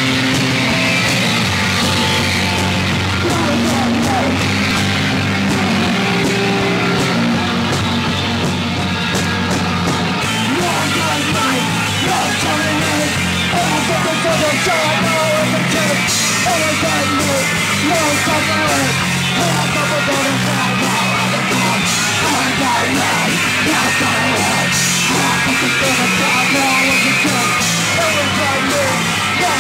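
Punk rock band playing live at a steady loud level, drums driving, with the singer yelling into a microphone over the music.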